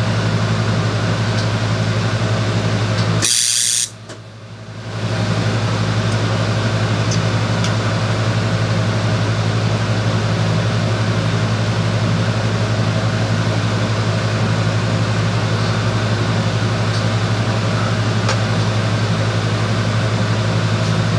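Arc welding: a steady hum with an even hiss as the arc runs. About three and a half seconds in there is a brief sharp burst, then the sound drops away for about a second before the steady hum and hiss return.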